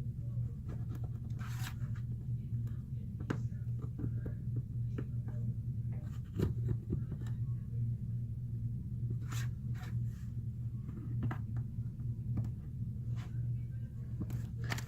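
Plastic spudger rubbing and pressing adhesive strips down onto a phone's frame: a string of short, irregular scratchy strokes and light taps.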